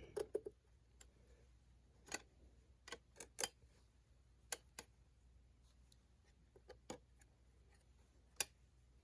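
Scattered light clicks and taps, about a dozen at irregular intervals, of small screw hardware and a carbon fiber panel being handled and worked against an RC truck's tube chassis.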